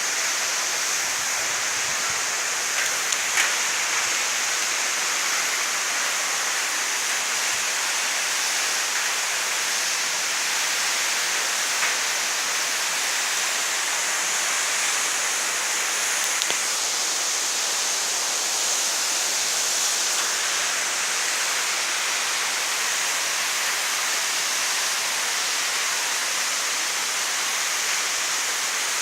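Waterfall: a steady rush of falling water, with a few faint clicks over it.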